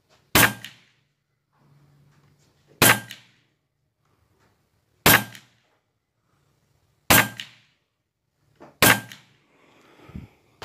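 Huben K1 semi-automatic .22 PCP air rifle firing five shots about two seconds apart, each a sharp crack with a short tail. It is shooting JSB Monster Redesigned pellets at about 1060 fps.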